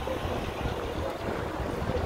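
Police helicopter overhead: a steady low drone.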